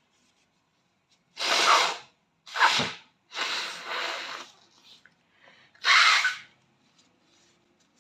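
A young man sneezing several times in quick succession, with fainter breaths between the sneezes. The sneezes are wet and snotty, his nose running.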